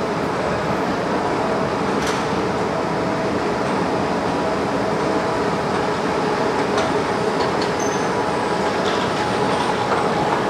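Steady mechanical rumble and hum of underground station machinery, with a sharp click about two seconds in.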